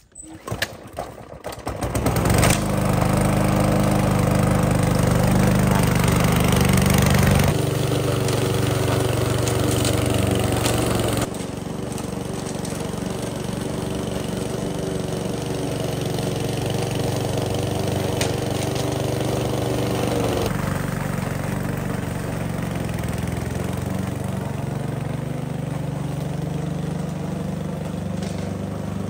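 Gasoline walk-behind lawn mower engine starting up and catching about two seconds in, then running steadily while mowing grass. It gets noticeably quieter about eleven seconds in as the mower moves away.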